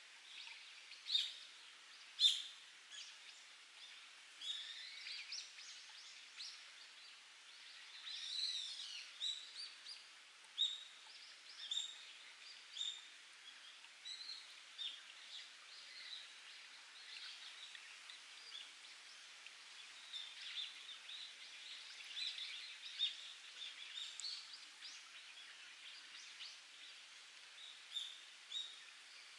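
Wild birds chirping and singing in many short calls, with a warbling, gliding phrase about eight seconds in, over a faint steady trickle of spring water dripping from rocks.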